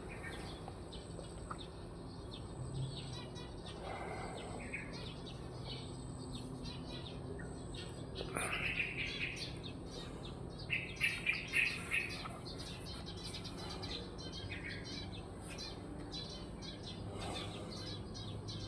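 Small birds chirping and calling, many short chirps overlapping, with a louder run of about six quick chirps about eleven seconds in.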